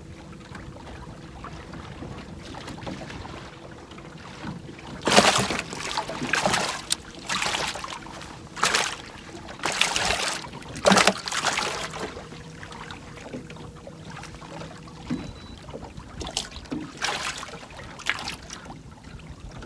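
Ambience on a small fishing boat on the water: a faint steady hum under a run of short rushing noise bursts, most of them between about five and twelve seconds in and a few more near the end.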